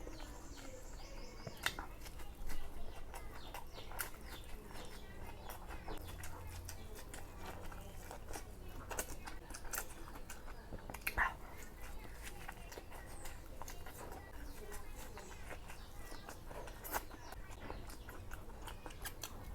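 A person chewing and biting food: irregular wet mouth clicks and smacks, with a few louder bites.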